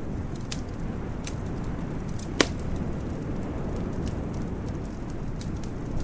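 Wood fire crackling in a fireplace: scattered small crackles and one sharp pop a little over two seconds in, over a steady low rumble.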